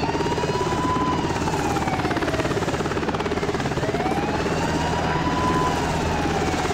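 Black Hawk-type helicopter flying low past, its rotor chop and turbine whine steady. Over it, a higher tone rises and falls slowly twice.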